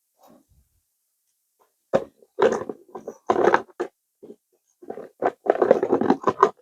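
Irregular clattering and rustling of oil paint tubes being handled and sorted, starting about two seconds in after a near-silent pause.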